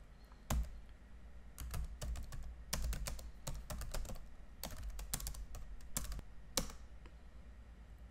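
Typing on a computer keyboard: a single key click, then a run of irregular keystrokes over about five seconds as a short command is typed in.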